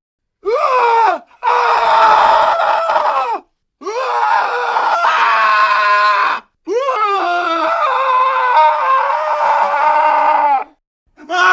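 A man screaming desperately: a short cry, then three long drawn-out screams separated by brief silences, each falling in pitch as it ends, and another starting near the end.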